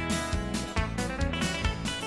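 Background music led by guitar, with a steady beat of about four strikes a second.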